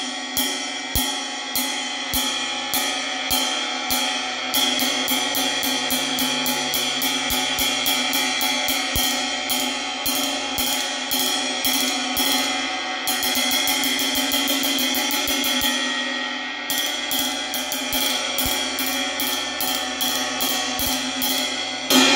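Paiste Sound Creation New Dimension 22-inch bell ride cymbal struck with a wooden drumstick in ride patterns, ringing under the strokes. The strokes start slow and even, then quicken, with a fast run about thirteen seconds in and a brief moment of ringing alone before steady strokes resume.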